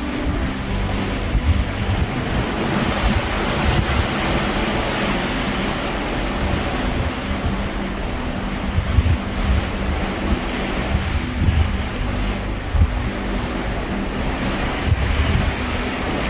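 Ocean waves rushing past a cruise ship at sea, with wind gusting on the microphone and a low steady hum underneath.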